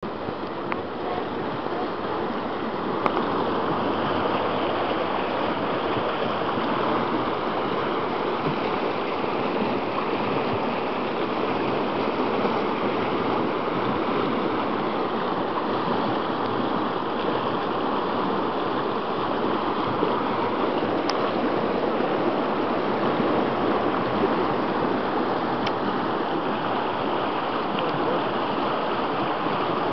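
River water rushing over rapids: a steady churning of whitewater. There is one brief click about three seconds in.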